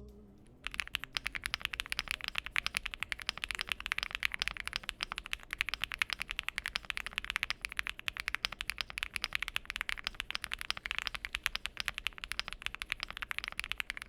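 Fast, continuous typing on a Weikav Lucky80 mechanical keyboard with Bsun linear switches, an FR4 plate and Key Kobo keycaps: a rapid, even stream of keystrokes that starts about half a second in.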